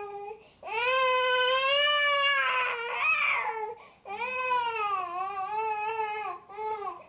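A baby crying: two long, high-pitched cries, each a couple of seconds, followed by a short third cry near the end.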